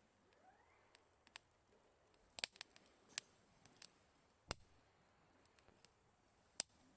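Campfire crackling faintly: scattered sharp pops and clicks of burning wood at uneven intervals, a few louder snaps among them.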